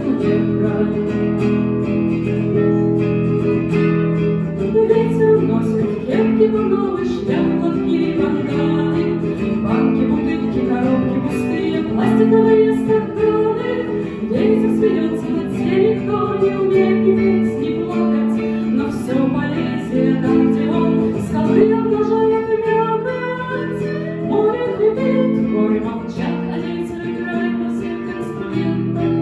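Live acoustic music without lyrics: a plucked acoustic guitar accompaniment with a melody line carried over it, playing steadily between sung verses of a folk song.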